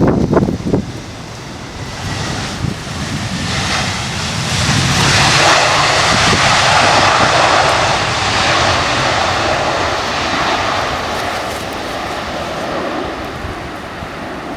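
Airliner's engines passing by, building over a few seconds to their loudest about six seconds in, then slowly fading away, with gusts of wind on the microphone at the start.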